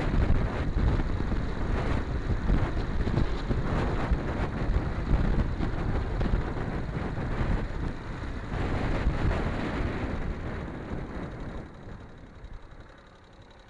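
Yamaha XT250 single-cylinder four-stroke trail bike riding along with wind buffeting the microphone. About twelve seconds in the sound drops away sharply as the bike slows to a stop, leaving the engine idling quietly.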